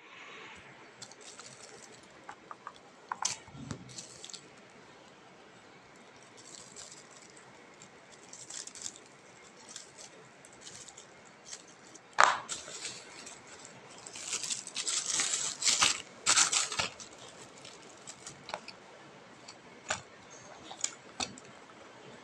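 Plastic courier mailer bag crinkling and being torn open by hand, with scattered clicks and taps from handling. The loudest crackling comes in a run of bursts about two thirds of the way through.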